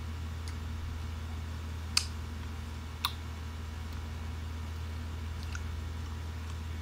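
A metal spoon clicks sharply twice against a ceramic bowl about a second apart while scooping fruit salad, with a few fainter clicks and quiet chewing in between. A steady low hum runs underneath.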